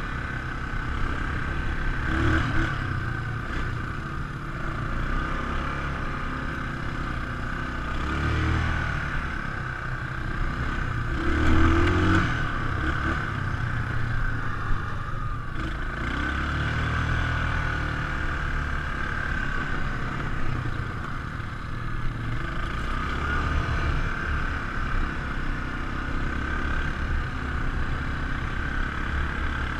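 ATV engine running as it rides, the revs rising and falling in several surges, loudest about twelve seconds in.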